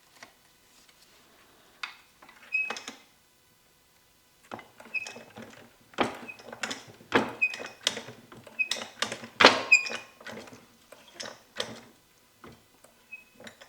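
Hydraulic lifting rig being handled: a run of metal clanks and knocks, many with a short high squeak, sparse at first and then coming thick and fast from about four seconds in.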